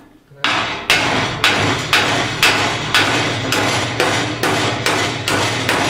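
Hammer blows on wrought iron, steady at about two strikes a second, with the iron ringing between blows. The smith is knocking a misplaced scroll of the gate up into position.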